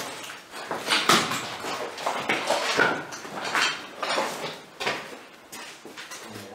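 Footsteps and rustling clothing and bags as people walk through a small tiled room: a run of irregular scuffs, one every half second to a second.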